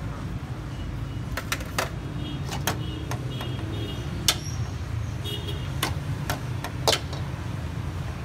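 A dozen or so sharp metallic clicks and clinks, irregularly spaced, several ringing briefly, over a steady low hum of street noise.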